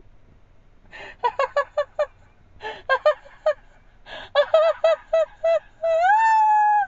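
A woman laughing hard in high, honking bursts: three runs of quick pulses, then a long high squeal that rises and holds near the end.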